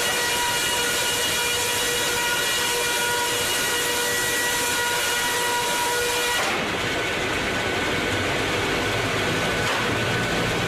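Homemade sawmill saw running and cutting wood: a steady whine over a loud hiss. About two-thirds of the way through, the hiss and whine cut off abruptly, leaving a lower machine hum.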